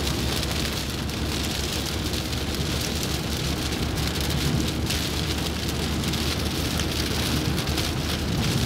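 Steady rain hitting a moving car, heard from inside the cabin as a dense patter over a constant low road rumble.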